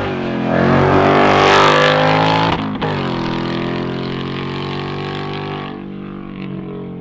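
Mustang Dark Horse's 5.0 L Coyote V8 through a combined H/X-pipe resonator-delete exhaust, accelerating hard with its pitch rising for about two and a half seconds. A sudden break follows, like a gear change, and then a steadier, slowly falling note as the engine eases off.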